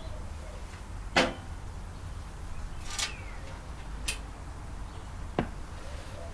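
Tools and metal parts knocking and clicking while a microwave oven is taken apart: four sharp strikes, the loudest about a second in, over a steady low hum.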